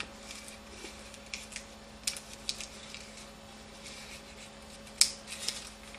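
Origami paper rustling and crinkling in the hands as a torn flap is tucked inside the paper glider, in a few short crisp rustles, the loudest about five seconds in.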